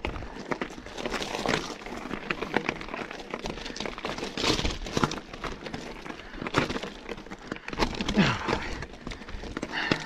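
Scott Spark RC mountain bike riding down a rough trail: tyres crunching over gravel and rock, with a dense stream of irregular rattles and knocks from the bike over the bumps.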